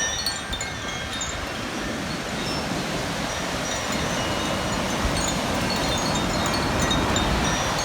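Koshi chime tinkling: scattered bright, high, ringing notes over the steady wash of ocean waves breaking on the shore.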